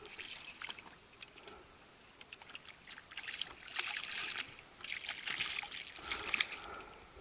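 Water splashing and dripping with small clicks as a hooked fish is brought up out of the lake, in two louder spells in the second half.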